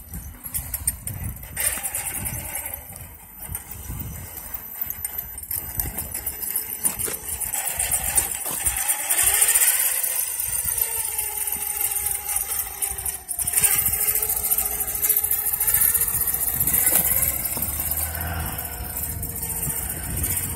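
The brushless electric motor of a 1/5-scale Losi DBXL (Castle Mamba XLX system on 8S) whines steadily under load while the buggy tows a loaded cart. Its pitch sinks and rises again midway as the throttle changes, over a low rumble of wheels rolling on pavement.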